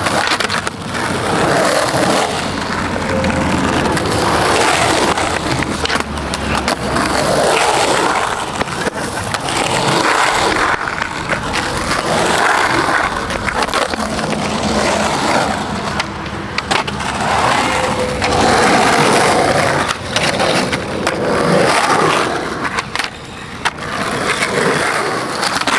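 Skateboard wheels rolling over rough concrete, a steady rumble that swells and eases as the riders carve up and down the banks, with a few sharp clacks of the board.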